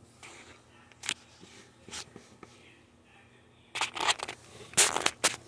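Handling noise from a hand-held phone: a few brief scrapes and rustles as a hand moves over and bumps the phone, the loudest cluster near the end.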